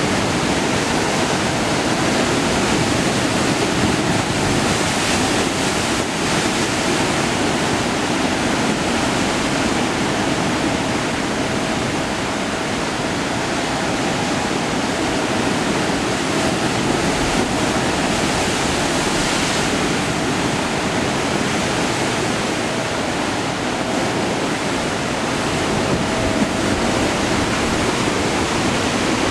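Steady rushing water, an even, unbroken wash of sound without pauses or distinct splashes.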